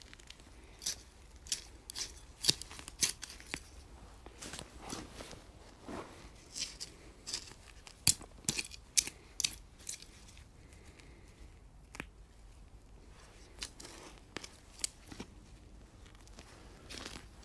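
Hand weeding: irregular sharp snaps and crackles of plant stems being pulled and broken. The snaps are thickest in the first half, pause briefly about ten seconds in, then resume.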